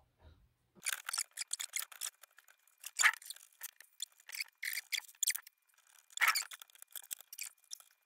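A PC power supply being fitted into a tower case: a run of short clicks, scrapes and knocks of metal and plastic, loudest about three seconds in and again a little after six.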